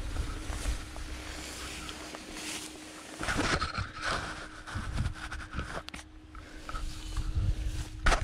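Stark Varg electric dirt bike ridden slowly over grass: a faint steady motor hum, wind rumble on the microphone, and scattered knocks and rustles, with a sharp knock near the end.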